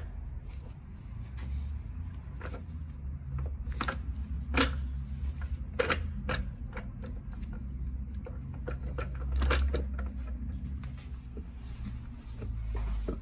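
Scattered metal clicks and knocks as the cast aluminium cover of a GY6-type ATV gearbox is worked onto its casing, the shaft being seated into its bearing. A few sharper knocks stand out about four and a half, six and nine and a half seconds in, over a low steady hum.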